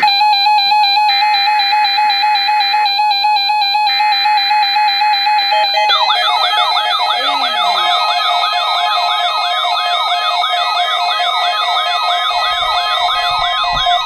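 Several NOAA weather radio receivers sounding their alerts for the weekly warning-alarm test. First a steady tone plays with a higher tone switching on and off over it. About six seconds in, a chorus of warbling, siren-like alarm sweeps starts, about two sweeps a second.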